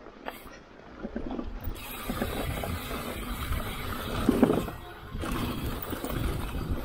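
Mountain bike rolling down a dirt trail: tyres on gravel and the bike rattling, with wind rumble on the microphone, starting about a second in. About four seconds in there is a louder clatter as the bike rolls over a wooden ramp.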